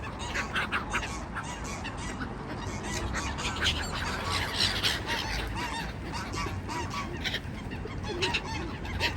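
A flock of geese honking, many short calls overlapping one another without a break.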